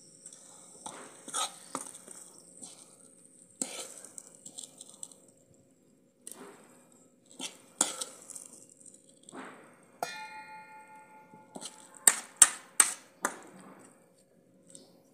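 A steel ladle scraping and knocking against a steel kadai as cooked masala is scooped out, with clinks on a steel mixer-grinder jar. One strike about ten seconds in leaves a ringing metal tone, and a quick cluster of loud clanks comes near the end.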